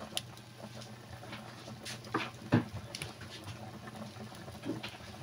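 Pork sinigang broth boiling hard in a pot over a wood fire: steady bubbling with scattered small crackles and pops, and one louder pop about two and a half seconds in.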